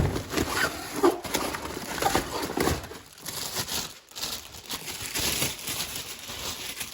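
Cardboard tool-kit box and packaging rustling and scraping, with small knocks and squeaks, as tools are lifted out of it.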